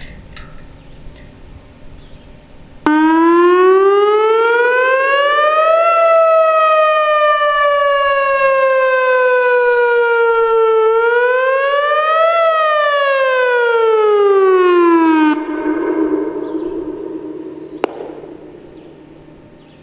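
Whelen WPS 2802 electronic warning siren sounding one signal: a tone that starts abruptly, rises, sinks slowly, rises again, then falls and cuts off sharply after about twelve seconds. Its echo dies away over the next few seconds.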